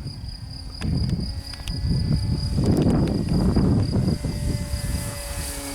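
Strong wind buffeting the microphone in gusts, loudest in the middle, over the steady high chirring of crickets.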